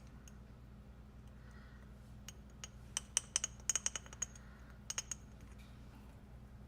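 Quick light clinks of a measuring spoon against a container while a teaspoon of cumin is scooped and added: a run of about a dozen sharp ticks from about two seconds in, then a couple more near five seconds, over a low steady hum.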